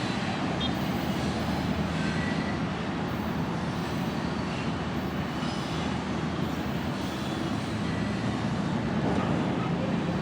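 Freight train running by with a steady, even noise from engines and rolling cars.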